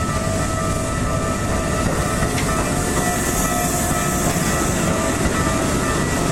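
A train running through a railway level crossing, with the crossing's warning bell sounding as steady ringing tones over the train noise.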